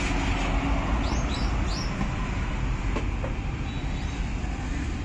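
Steady low rumble of road traffic going by, with a few short bird chirps about a second in.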